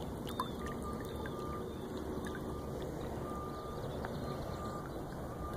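Steady rushing of river water, with no single event standing out.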